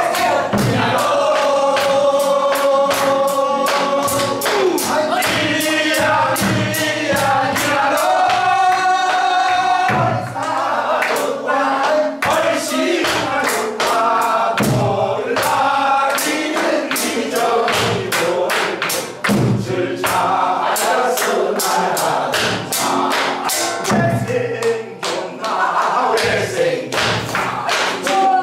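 Mixed group of voices singing a Korean folk song (minyo) in chorus, accompanied by a nylon-string classical guitar, over a steady beat of hand claps and drum strokes.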